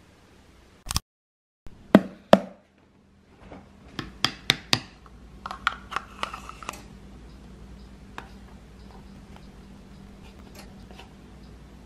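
Kitchen handling sounds of a ceramic bowl and food containers on a countertop. Two sharp knocks come about two seconds in, then a quick run of taps and clinks, some with a short ring. After that there are only a few faint ticks.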